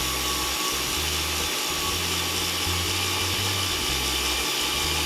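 Countertop blender motor running steadily, blending raw carrots, eggs, sugar and oil into a liquid carrot cake batter.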